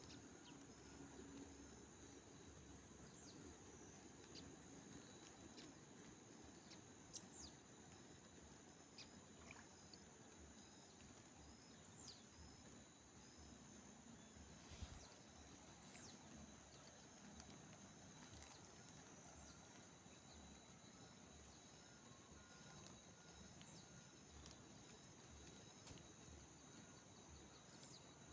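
Faint outdoor ambience of insects: a steady high-pitched trilling, a short chirp repeating about once a second, and a few faint clicks.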